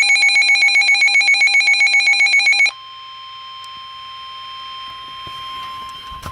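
NOAA Weather Radio alert tones: a loud electronic pulsing signal, about six pulses a second, cuts off sharply after about two and a half seconds, and a steady, quieter warning alarm tone near 1050 Hz carries on, the signal that a warning broadcast follows.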